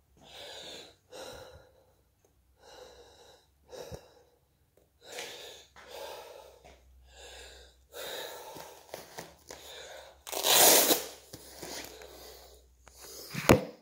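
A person breathing hard after a boxing workout: heavy breaths about once a second, with a loud forceful blow-out about ten seconds in. A sharp knock comes just before the end.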